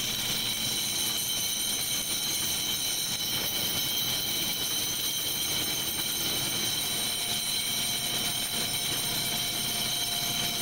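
Factory machinery running steadily, a constant mechanical rumble with several high-pitched whining tones over it; a lower steady tone joins about two-thirds of the way through.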